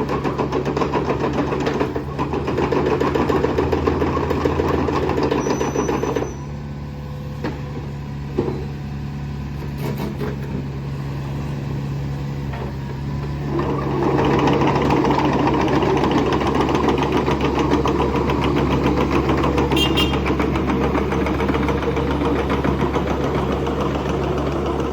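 Komatsu 4D84E four-cylinder diesel engine of a mini excavator running steadily. It drops to a quieter note about six seconds in and picks up again at around fourteen seconds.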